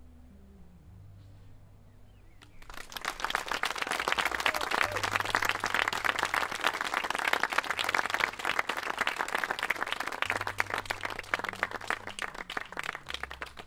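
Audience applauding. The clapping breaks out about two and a half seconds in, swells into dense applause, then thins out toward the end.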